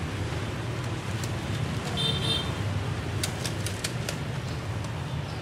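Steady street traffic rumble. A short high beep comes about two seconds in, and a quick run of sharp clicks a little after three seconds.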